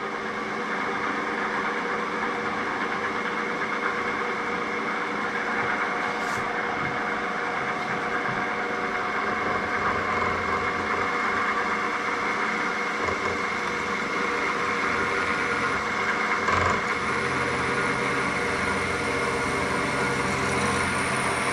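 Drill press motor and spindle running steadily with a constant hum while a twist drill is fed into a clamped metal part. A single knock comes about three-quarters of the way through, after which a lower hum and a faint high whine join in.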